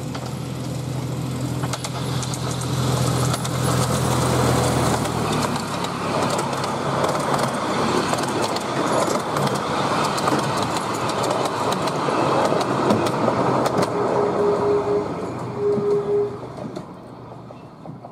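Miniature railway diesel-hydraulic locomotive running steadily as it approaches, then its carriages rattling past over the track. Two short tones sound about three quarters of the way through, and the train fades away near the end.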